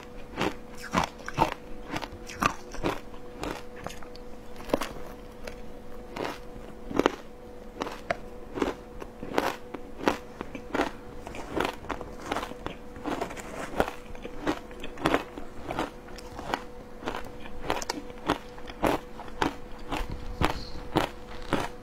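Matcha shaved ice being chewed and crunched right at a clip-on microphone: rapid, irregular crisp crunches of ice, a few every second.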